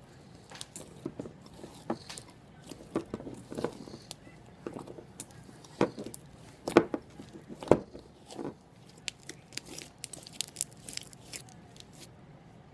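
Glittery slime being squeezed and kneaded by hand, giving irregular sticky pops and clicks, with two louder pops a little past the middle.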